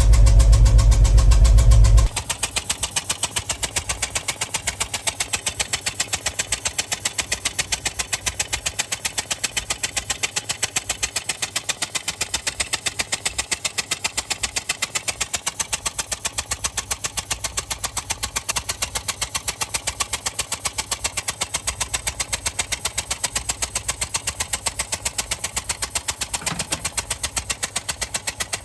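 1969 Ford F350's FE 360 V8 idling with a sharp, even puffing several times a second, pressure escaping at one cylinder near the spark plug hole. The owner takes it for a blown-out spark plug or damage to the cylinder head, while his dad suspects a blown exhaust donut. A loud low rumble covers the first two seconds and cuts off suddenly.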